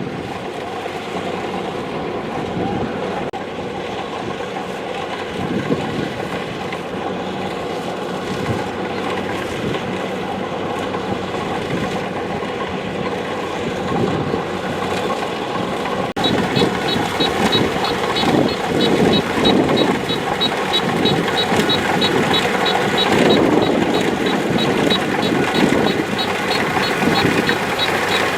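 Kubota DC-70 Plus combine harvester's diesel engine and threshing machinery running steadily. About halfway through, a rapid high-pitched electronic beeping starts and keeps going alongside it.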